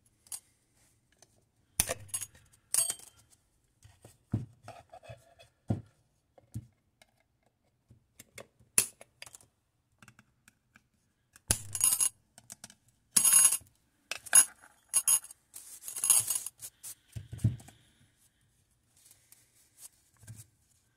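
Flat-blade screwdriver prying sprung steel retaining clips off a VW Golf Mk7 1.4 TSI throttle body: scattered metallic clicks and clinks, with a dense run of bright, ringing clinks in the middle, and a few dull knocks as the housing is handled on the bench.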